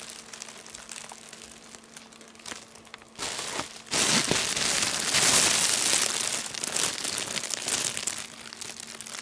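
Crinkly fabric of a cat play tunnel rustling and crackling as a tabby cat moves around inside it. It is softer at first and grows louder and busier from about three seconds in, before easing off near the end.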